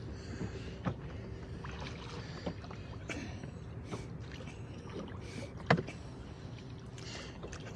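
Small rowboat being rowed in place: irregular knocks of the oars working in their oarlocks, the loudest a little before six seconds in, over a steady rush of wind and water.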